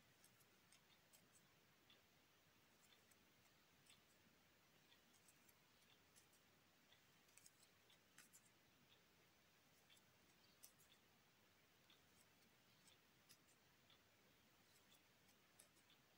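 Near silence, with faint, irregular small ticks from a crochet hook working single crochet stitches in yarn.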